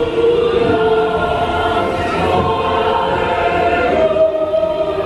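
Choral music from a dark ride's soundtrack: a choir singing long held notes that shift slowly in pitch.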